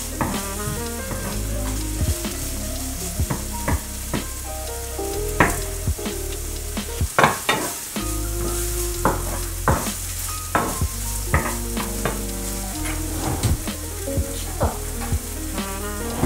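Food sizzling in hot oil in a non-stick frying pan while a wooden spatula stirs it, knocking and scraping against the pan in frequent irregular taps. Light background music plays underneath.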